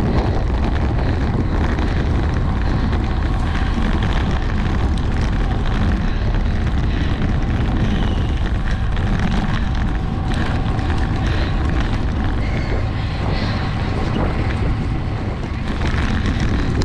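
Steady wind rush buffeting the microphone of a camera on a road bicycle ridden at race speed, with the bike's rolling noise on asphalt underneath.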